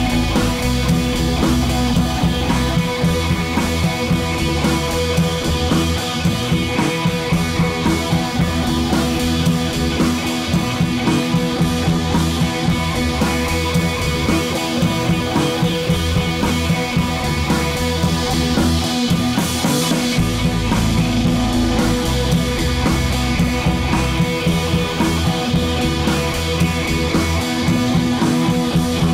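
Rock music with guitar and drums and a steady beat.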